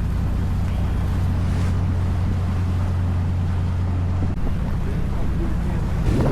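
A 31-foot Bertram sportfishing boat's engines running underway, a steady low drone, with wind buffeting the microphone. The drone drops away suddenly about four seconds in, leaving the rush of wind and water.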